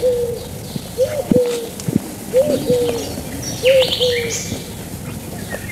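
A dove cooing in short repeated notes, four in the first four seconds, with small birds chirping and trilling at a higher pitch.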